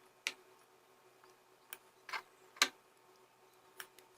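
A metal spoon clicking lightly against a dish while honey is spooned in: about five short, sharp taps spaced unevenly over a few seconds.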